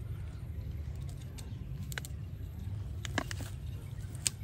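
A low steady rumble with a few short crackles of grass and leaves as two baby macaques handle them, about three in all, the clearest a little after three seconds in and just before the end.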